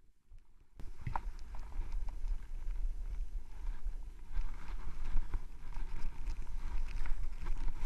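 Skis running through deep powder snow, a continuous hiss with a low rumble of wind buffeting the camera microphone, starting suddenly about a second in, with scattered small clicks and knocks of ski gear.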